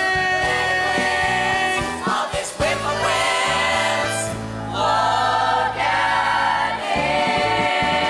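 Stage musical number with an ensemble of young voices singing together over instrumental accompaniment with a steady bass line; the sound dips briefly twice midway.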